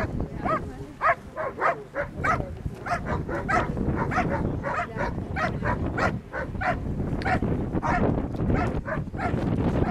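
A Belgian Malinois barking steadily at a helper hidden in a training blind, about two to three sharp barks a second without a break: the bark-and-hold alert of protection-sport training.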